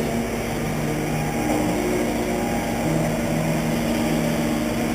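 2wd stock-class RC race trucks running on the track: a steady mechanical din with low motor tones that shift in pitch as the trucks speed up and slow down.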